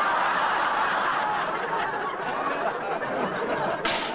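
Studio audience laughing, with a short sharp noise near the end.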